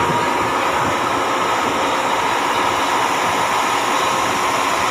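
ESS 3201 'Bonbon' electric locomotive standing switched on, its machinery running: a steady whirring with a held whine.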